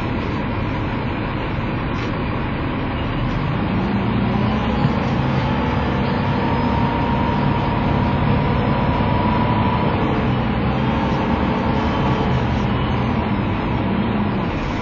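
Engine of a KMB ADS-class three-axle double-decker bus running steadily at standstill, idling, with its engine note growing a little louder and steadier about four seconds in.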